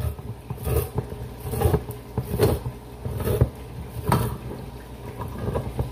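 Handheld manual can opener with a turning key cutting round the lid of a steel tin of baked beans: a crunching click with each turn of the key, repeating a little more than once a second.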